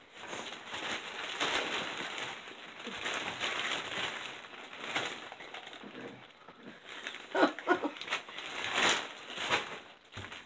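Irregular rustling and handling noises close to the microphone, with a few short squeaks about seven and a half seconds in.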